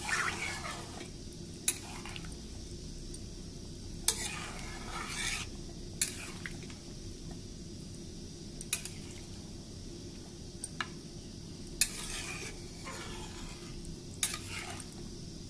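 A spatula stirring egg curry in a metal kadai: sharp knocks of the spatula against the pan every second or two, some followed by scraping and swishing through the gravy.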